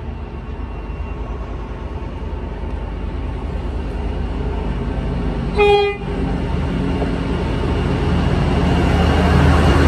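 Class MZ diesel-electric locomotive approaching at the head of a freight train, its engine running with a low rumble that grows steadily louder. About halfway through it gives one short horn toot.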